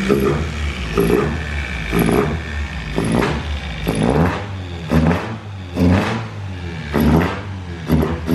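Toyota 4A-GE 20-valve four-cylinder engine being revved in short throttle blips, about one a second. Each time the revs climb and then drop back toward idle.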